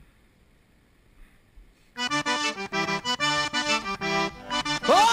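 Near silence for about two seconds, then Cajun accordion music starts suddenly with quick, rhythmic chords; a sliding note comes in near the end.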